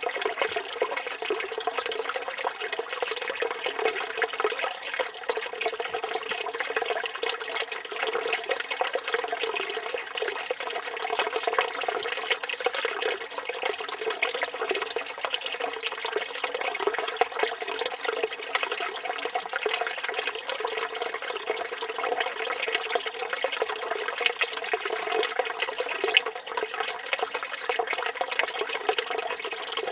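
Water running steadily from a village fountain's spout and splashing below, a constant, unbroken rushing.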